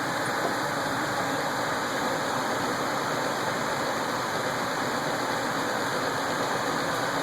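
Trane XR90 gas furnace running with its burners lit, being test-fired after a heat exchanger replacement: a steady rushing noise.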